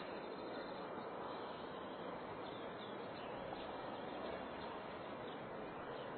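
Countryside village ambience: a steady background hush with faint, scattered bird chirps.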